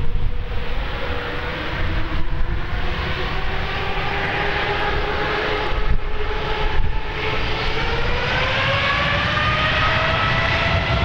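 An ANA Boeing 787-8's Rolls-Royce Trent 1000 jet engines whining, the pitch climbing over the last few seconds as they spool up for takeoff. Gusty wind buffets the microphone.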